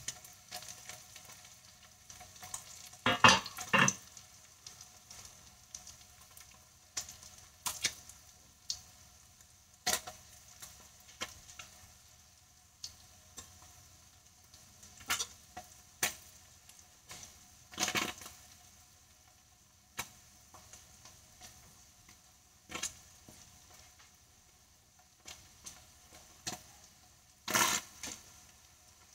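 Spam slices frying in shallow oil in a nonstick skillet: a faint steady sizzle broken by irregular sharp pops and crackles of spattering oil, the loudest a few seconds in and again near the end.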